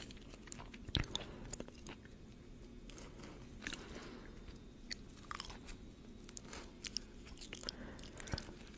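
Close-miked chewing of crisp food, with scattered crunches and sharp mouth clicks.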